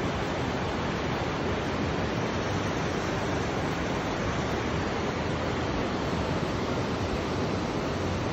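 Steady rushing of the river in the gorge below, mixed with wind on the microphone.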